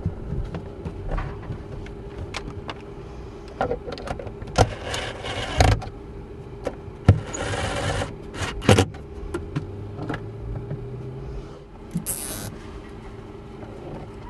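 Hands-on electrical installation sounds: clicks and knocks of cables and fittings being handled. Two rasping bursts come about five and seven seconds in, and a short high hiss near twelve seconds, over a steady low hum.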